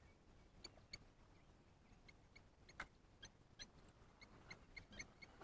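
Near silence, broken by about a dozen faint, short, high-pitched ticks at uneven intervals.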